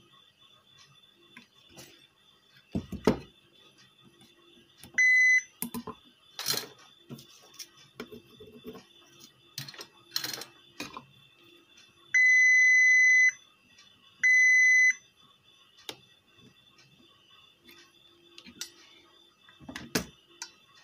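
Digital multimeter's continuity buzzer beeping three times, a short beep, a longer one and a medium one, each time the test probes touch a low-resistance path while the inverter's MOSFET pins are checked for shorts. In between come the clicks and taps of the probes and board being handled, with one louder thump.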